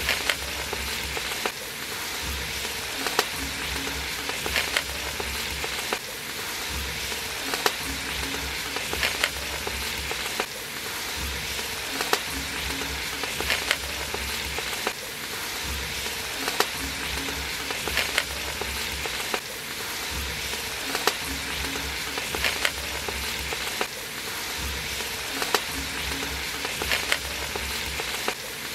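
Prawns and onion-tomato masala frying in an aluminium pot, a steady sizzle, with the metal slotted ladle stirring and clinking against the pot in short sharp ticks every second or two.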